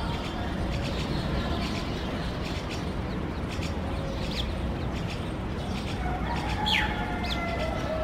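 Birds chirping: scattered short calls and whistles, with a sharp falling note near the end, over a steady low background rumble.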